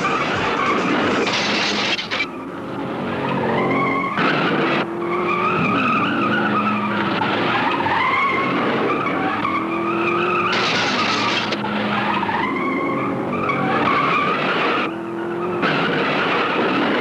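Demolition derby cars' engines revving and tyres squealing and skidding, the squeal wavering up and down in pitch, with several short louder bursts of noise.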